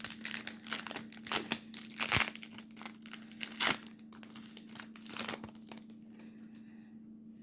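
Wrapper of a Topps baseball card pack being torn open and crinkled: a run of sharp crackles that dies away about five and a half seconds in.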